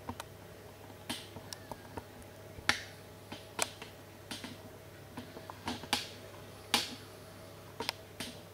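Irregular sharp clicks and ticks, about a dozen, a few much louder than the rest, over a steady low hum.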